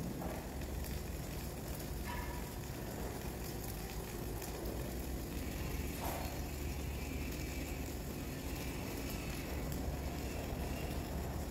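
Flux-cored arc welding: the arc crackles and sputters steadily over a low, constant hum.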